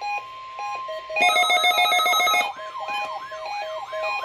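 NOAA Weather Radio warning alarm: a steady single tone of about 1050 Hz, with electronic alarms sounding over it. Short beeps repeat through it. About a second in, a loud rapid warble starts; it gives way after about a second to a siren sweeping up and down about three times a second.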